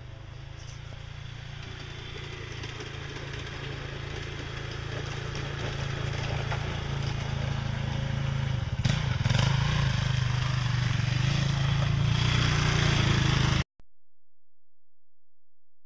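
450 cc single-cylinder ATV engine running hard under load as the quad climbs a steep hill, growing steadily louder as it comes nearer, then cutting off suddenly near the end.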